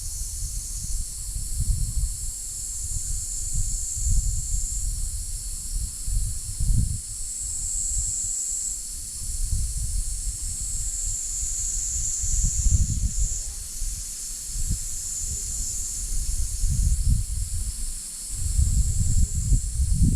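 Dense chorus of insects buzzing steadily high-pitched, swelling and fading in parts, with gusts of wind rumbling on the microphone.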